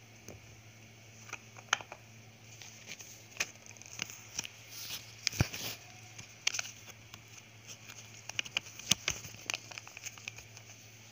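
Irregular light clicks and taps, the handling noise of a handheld phone and small objects on a tabletop, over a steady low hum.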